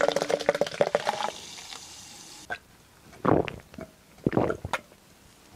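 A drink poured from a can into a tall glass, splashing for about a second and a half and then settling into a soft hiss. It is followed by a few swallowing gulps as the glass is drunk from.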